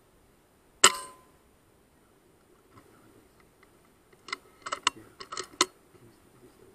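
A single shot from a .177 FX Wildcat PCP air rifle a little under a second in: one sharp report that dies away within half a second. From about four seconds in, a quick run of metallic clicks over a second and a half as the rifle is worked for the next shot.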